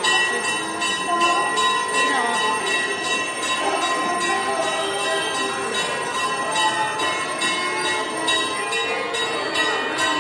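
Hindu temple bell rung over and over in a quick, steady rhythm, its ringing tone carrying on between the strokes, with voices in the background.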